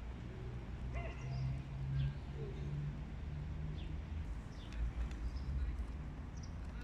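Low, steady outdoor rumble that swells about two seconds in, with a few short, faint bird calls over it.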